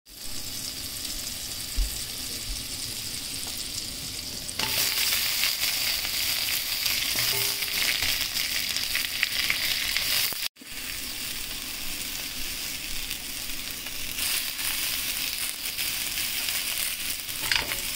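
Sliced onion and yellow bell pepper sizzling as they fry in a stainless steel pan, stirred with a silicone spatula. The frying gets louder about four and a half seconds in, and there is a brief break just past the middle.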